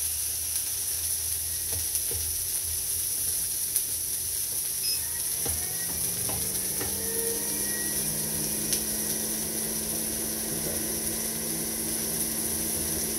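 Chopped bacon, peppers and red onion sizzling on the hot griddle plate of a Pampered Chef Deluxe Electric Grill and Griddle at 400 degrees, stirred with a plastic spatula that scrapes and taps now and then. About five seconds in, an exhaust fan's hum comes on, rises in pitch and then holds steady.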